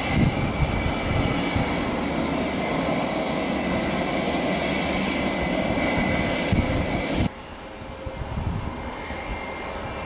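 Jet airliner engine noise with a steady high whine over a rushing roar, with wind buffeting the microphone. It cuts off abruptly about seven seconds in, leaving quieter wind and fainter jet engine sound.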